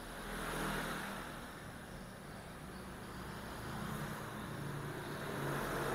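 Background road traffic: a steady low rumble of vehicle engines that swells about half a second in and again in the second half.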